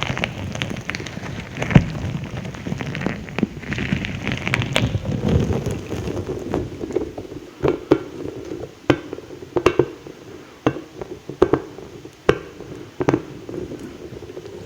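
Close-miked ASMR mouth sounds: wet smacking and crackling, then a run of separate sharp mouth clicks in the second half.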